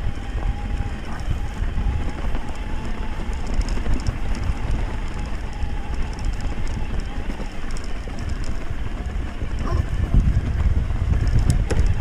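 Wind buffeting the microphone of a camera on a moving electric mountain bike, a loud low rumble that grows stronger, with a faint steady whine that fades after the first few seconds.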